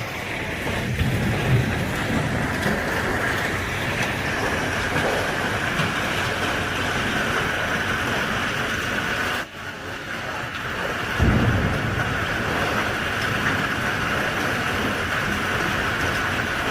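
Steady heavy rain, with a low rumble of thunder about a second in and another about eleven seconds in. The sound dips briefly about nine and a half seconds in.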